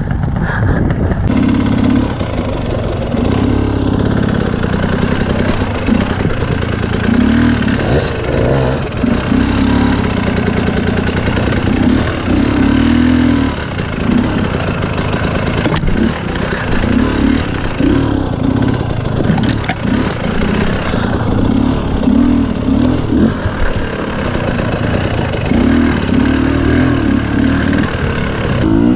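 KTM 250 EXC dirt bike engine revving up and down in short bursts of throttle, pulling at low speed over a rocky trail.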